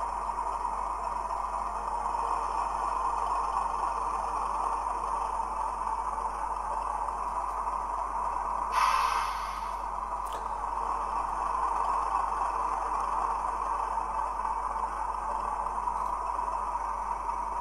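Hornby Class 31 model locomotive's TTS sound decoder playing diesel engine sound through its small sugar-cube speaker as the loco runs slowly along the track. A short hiss comes about nine seconds in, and a faint click a second later.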